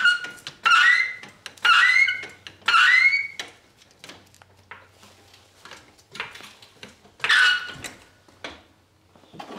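Floor jack squeaking with each stroke of its pump handle as it lifts the car: a squeak about once a second for the first three seconds, then one more about seven seconds in, with light metal clicks between.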